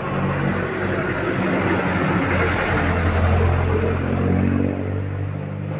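A motor vehicle's engine running close by, swelling to its loudest a little past the middle and then easing off as it passes.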